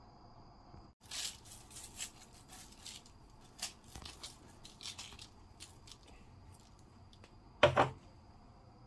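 Kitchen handling noises: irregular scratchy rustling and scraping strokes from about a second in, with a sharper knock near the end.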